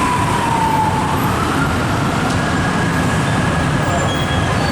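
Loud, steady street traffic with an emergency vehicle's siren wailing: a single tone slides down over the first second, then climbs and holds at a higher pitch.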